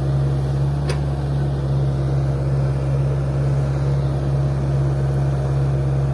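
Diesel engines of a Hitachi excavator and an Isuzu Elf dump truck running with a steady low drone while the excavator loads fill soil into the truck, with one faint short click about a second in.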